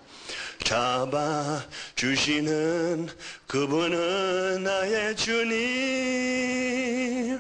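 A man singing a slow Korean devotional song. The phrase ends in long held notes with vibrato, the last one a step higher.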